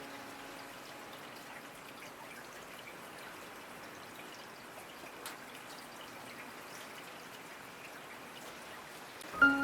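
Steady rain falling, an even hiss with light drips. The last of a sustained music chord fades out at the start, and soft mallet-like notes come in just before the end.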